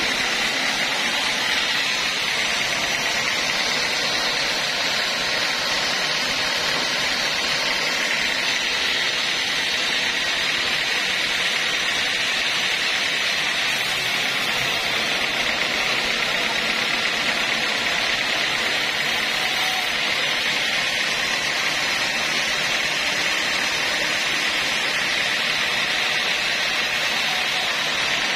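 Homemade band sawmill running with its blade sawing lengthwise through a mahogany log, a steady, even sawing noise with no breaks.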